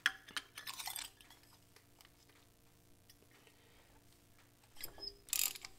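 Steel spark plug socket and extension clinking a few times as they are fitted onto a spark plug. Near the end, a hand ratchet clicking quickly as the spark plug is turned out.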